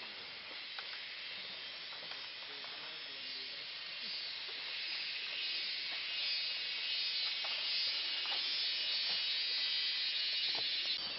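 Forest insect chorus: a steady, dense, high-pitched drone that grows louder about four seconds in, with a few faint snaps.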